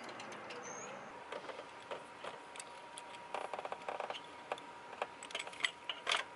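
Scattered light clicks and taps of hand tools and small metal engine parts being handled, over a faint steady high tone.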